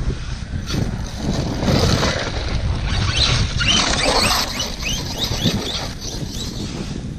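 Losi DBXL-E electric RC buggy driving over grass and passing close by, its motor whine rising and falling as it comes near about four seconds in, over wind buffeting the microphone.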